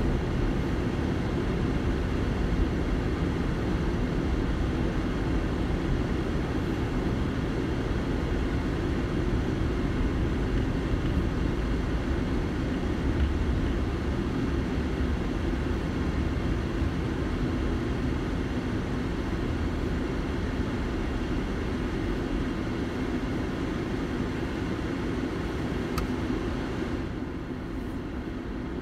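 Steady low rumble of tyres and engine heard inside a moving car, easing off near the end as the car slows to a stop in traffic. A single faint click comes shortly before it quietens.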